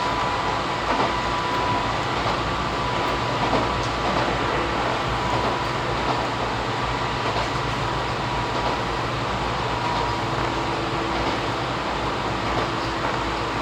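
Izuhakone Railway 3000 series electric train running at speed, heard from inside the car: a steady rumble of wheels on rail, with a few faint clicks and a thin, steady high whine.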